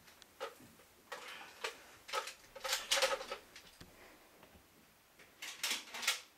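A run of short, sharp, irregular taps and clicks in a small hard-walled room, spaced roughly half a second apart from about half a second in, densest and loudest around three seconds in, then another quick cluster near the end.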